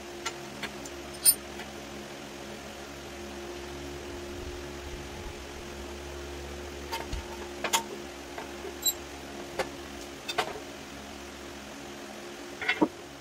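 Scattered sharp metallic clinks and taps of hand tools working on a mini bike's rear wheel, the loudest about a second in and a quick cluster near the end, over a steady low hum.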